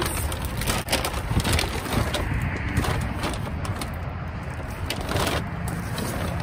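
Trash being rummaged through in a dumpster: a steady rustle with many quick knocks and clatters as bags and items are shifted and handled.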